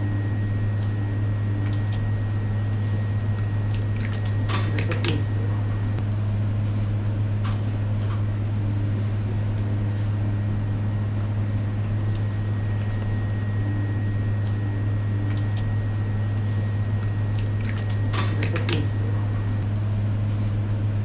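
Steady low mechanical hum of kitchen machinery, with short clusters of light clicks from steel skewers being threaded through an eel fillet, about four seconds in and again near the end.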